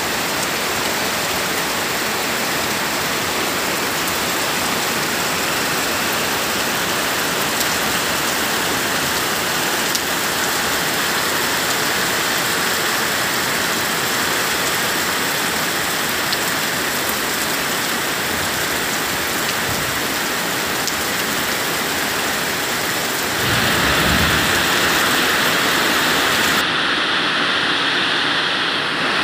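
Heavy rain pouring steadily onto trees, foliage and a roof, a continuous dense hiss. About 23 seconds in it grows louder, with a brief low rumble.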